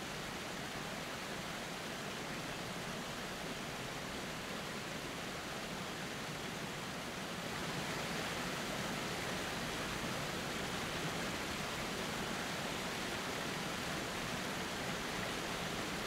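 Steady rush of water from a waterfall spilling over a rock ledge, getting a little louder about halfway through.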